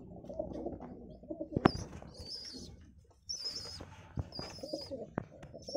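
Domestic high-flyer pigeons cooing, a low warbling call in the first second and a half. After that come a sharp click and repeated high, thin, wavering chirps with a few more clicks.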